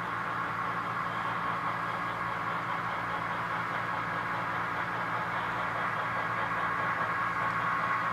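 HO scale model train, a set of Southern Pacific F-unit diesels pulling freight cars, running toward the listener with a steady mechanical hum and rumble. It grows a little louder near the end as the train comes closer.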